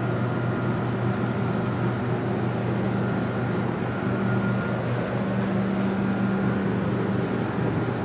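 Steady machine-like hum: a low drone with a faint higher tone above it.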